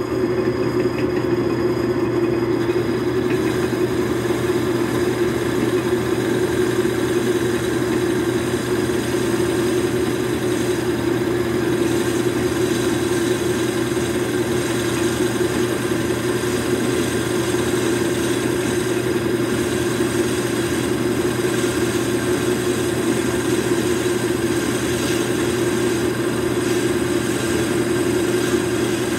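Small benchtop metal lathe running steadily under a cut on a pulley hub, its motor giving a constant hum with a steady mid-pitched whir over it.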